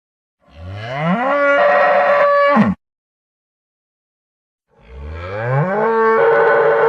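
Spanish fighting bull bellowing twice. Each long call starts low, rises in pitch, holds steady, then drops away at the end. The second call begins about halfway through.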